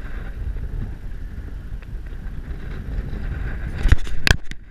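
Wind buffeting the microphone in a steady low rumble, with two sharp knocks about four seconds in.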